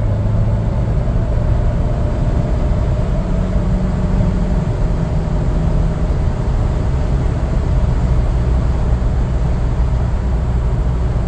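Steady engine and road noise inside the cabin of a Ford Bronco accelerating to highway speed on oversized 315/70R17 tyres.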